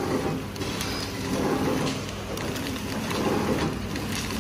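Three-servo horizontal flow-wrap packing machine running: a steady mechanical running noise with faint ticks from its feed and sealing mechanism as it cycles.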